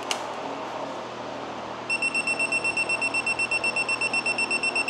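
Digital torque wrench beeping rapidly, a high-pitched beep about eight times a second starting about two seconds in, as an oil pan bolt is pulled toward its set torque.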